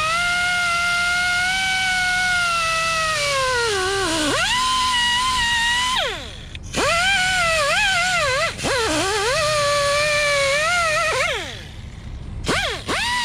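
Whine of an electric power tool's motor. Its pitch sags as the tool is pushed into the work and climbs back when eased off. It spins down twice when released and winds back up.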